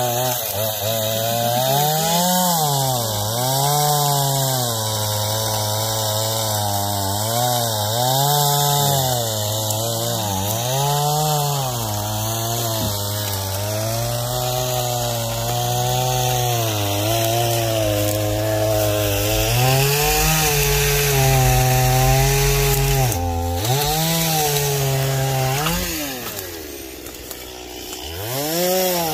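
Gasoline chainsaw cutting wood, its engine note repeatedly sagging as it bogs under load and revving back up. For a few seconds it holds a steady high pitch. Near the end it drops briefly toward idle, then revs up again.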